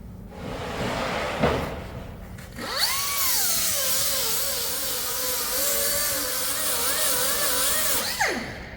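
Angle grinder grinding a weld-prep bevel on steel: a short run about a second in that winds down, then the grinder spins up near three seconds, its motor pitch wavering as it bites into the steel, and winds down near the end.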